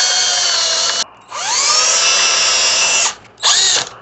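Power drill running into wooden boards in three runs: one that stops about a second in, a longer one that spins up with a rising whine, and a short burst near the end.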